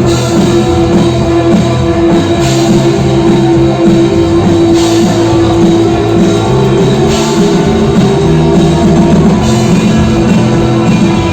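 A rock band playing live: electric guitar and drum kit, loud and steady, with cymbal crashes every couple of seconds, in an instrumental passage without singing.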